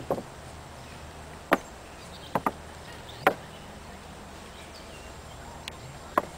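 Horse's hooves knocking on a wooden plank teeter-totter: about six sharp wooden knocks at irregular intervals, two in quick succession about two and a half seconds in, as the horse shifts its weight on the board.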